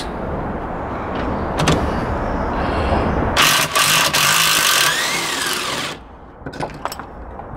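Cordless drill with a socket extension undoing the mounting bolt of a car's rear shock absorber. The motor runs hard for a few seconds in the second half, its pitch rising and falling near the end, then stops, and a few light clicks follow.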